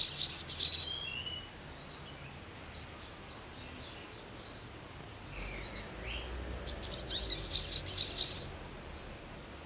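Male olive-backed sunbird singing: a burst of rapid, high notes that ends about a second in, a few softer notes, then a second loud burst of the same song starting near seven seconds and lasting under two seconds.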